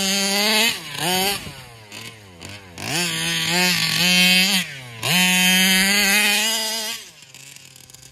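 Rovan 32cc two-stroke engine, Meyer-ported and breathing through a Taylor RC side pipe, in a 1/5-scale gas RC car driven hard: it revs up to a high steady pitch in repeated full-throttle runs, each a second or two long, with a quick blip and a short drop toward idle between them. It falls back to idle near the end.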